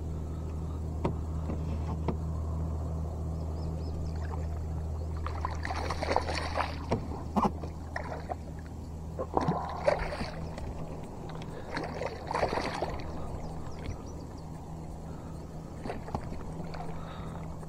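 Hooked largemouth bass splashing and thrashing at the surface beside a kayak in several short bursts, starting about five seconds in. A steady low hum lies underneath.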